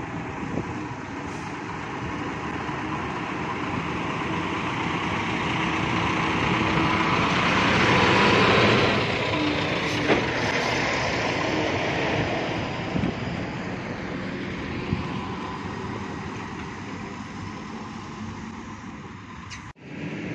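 A Foton heavy tractor-trailer drives past. Its diesel engine and tyres grow louder, are loudest about eight or nine seconds in, then fade as it moves away.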